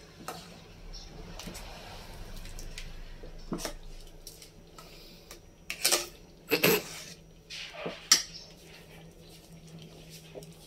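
A metal ladle stirring thick champorado in a metal rice-cooker pot, scraping and clinking against the pot, with a few louder knocks about six to eight seconds in.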